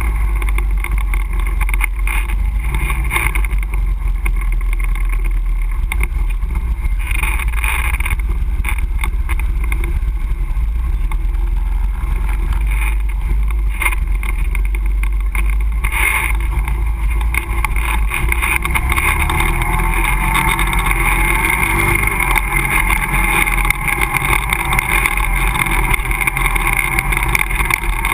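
ATV engine running steadily as the quad rides along a dirt trail, with a low rumble throughout. The engine pitch rises about two-thirds of the way in as it speeds up.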